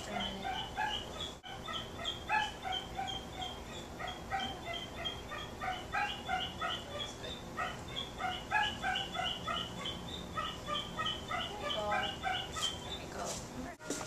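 Cockatiel giving a rapid run of short, repeated calls, about three or four a second with brief pauses, while held wrapped in a towel.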